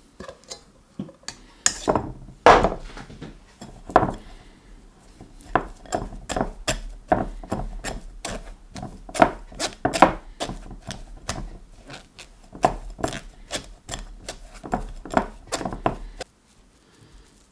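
A silicone spatula scraping and pressing mashed potato through a fine metal mesh sieve set on a glass bowl, in repeated strokes about two a second that stop about a second before the end.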